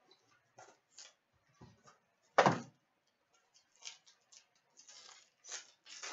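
Cardboard box and wrapper packaging of a hockey card box being handled and opened: scattered light clicks and rustles, a single sharp knock about two and a half seconds in, the loudest sound, then a run of crinkling and tearing near the end.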